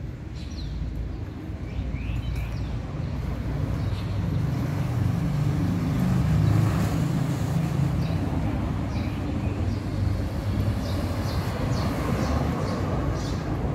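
Low engine rumble of a motor vehicle in the street, swelling over the first several seconds and loudest around the middle, with small birds chirping now and then.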